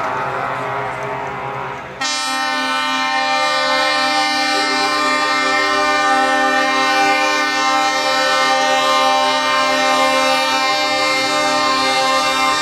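Truck air horns held in a long, steady, multi-tone chord, starting suddenly about two seconds in, just after a passing truck's engine rumble, and sounding without a break, with a lower note joining shortly after.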